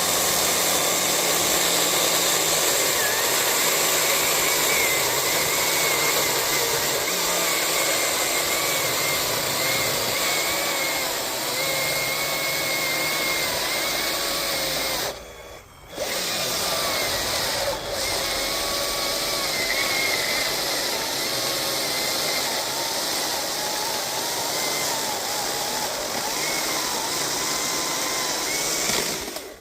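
Husqvarna T542i XP G battery top-handle chainsaw with a 16-inch bar cutting through a log of hard birch and its knot, the motor's whine wavering under load. About halfway through it cuts out for about a second, where the clutch let go once, then runs on and stops at the end.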